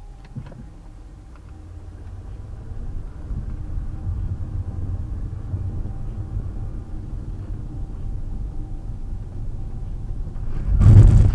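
Engine and road noise inside a car, rising as the car pulls away and picks up speed, then holding steady. Near the end comes a sudden loud burst of sound.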